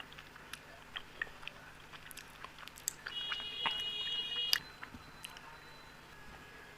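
Close-up eating sounds of a person chewing soft sweets: scattered small clicks and smacks. About three seconds in, a steady high-pitched tone sounds for about a second and a half.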